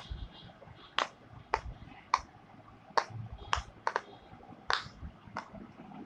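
Silicone pop it fidget toy, its bubbles pushed through one at a time by a finger. It gives about nine sharp popping clicks at an uneven pace of one or two a second.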